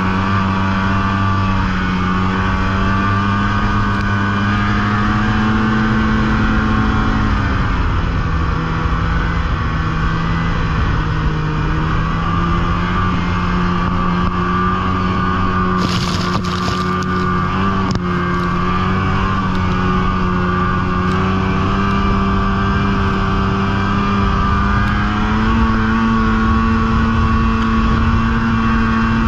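Snowmobile engine running steadily under throttle while riding. Its pitch drops about a quarter of the way through and climbs again near the end, with a short hiss just past halfway.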